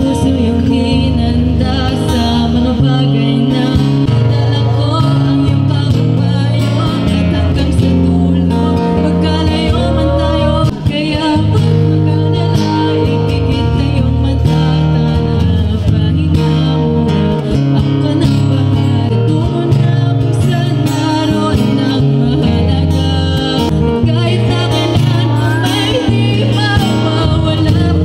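A song performed live: singing with an acoustic guitar accompanying it.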